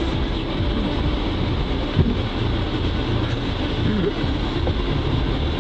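Dirt bike engine running unevenly in deep mud, with a few short revs. A short knock about two seconds in.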